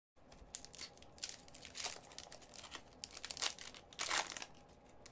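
Foil hockey card pack wrapper being torn open and crinkled by hand, a run of crackling bursts with the loudest about two seconds in and again about four seconds in.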